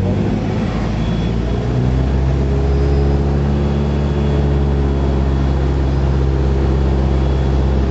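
Cessna 172's piston engine and propeller droning steadily in flight, heard inside the cabin; the drone grows slightly louder about two seconds in.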